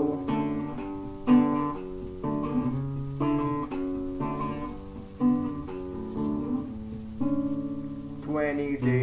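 Acoustic guitar strumming chords in a short instrumental passage, changing chord every second or so, with a man's singing voice coming back in near the end.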